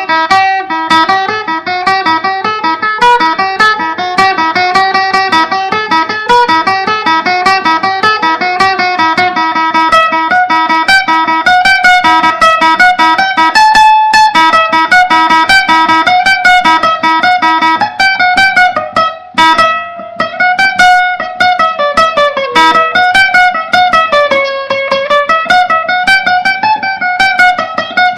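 Guitar improvisation with a fast, continuous run of picked notes. In the last third, notes bend and slide up and down. The recording quality is very bad.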